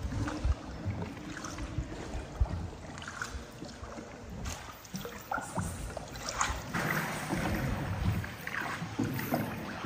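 Paddled tourist boat moving through water inside a limestone cave: irregular paddle splashes and drips, with scattered small clicks and knocks.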